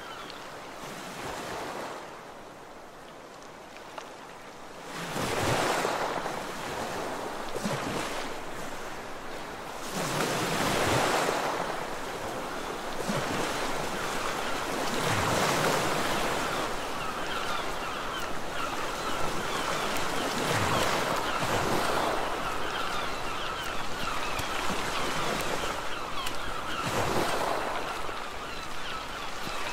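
Sea surf: waves breaking and washing in, the hiss of the water swelling about every five seconds.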